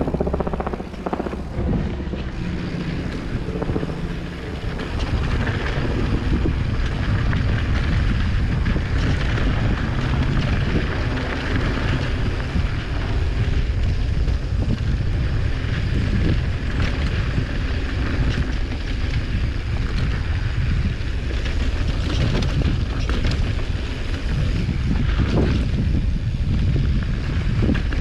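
Wind buffeting the microphone of a mountain biker riding downhill on a dirt trail, over the steady noise of the tyres and scattered knocks and rattles of the bike over bumps.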